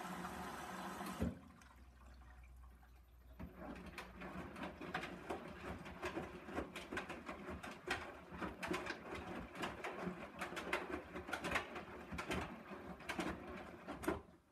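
Hoover Dynamic DYN 9164 washing machine running a wash cycle: a steady hum stops with a click about a second in, then after a short lull come irregular sloshing and splashing sounds from water and laundry in the turning drum.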